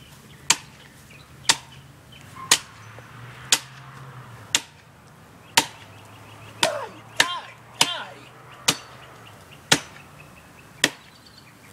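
A tree trunk being chopped by hand: sharp woody strikes of a blade into the wood, about one a second, a dozen in all.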